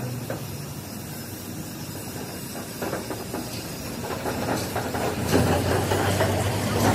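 Hiss of air from a paint spray gun, over a steady low engine or motor hum that drops out about a second in and comes back louder a little past five seconds.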